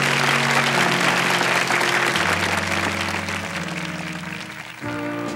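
Studio audience applauding over a held band chord. Near the end the clapping falls away and music starts up.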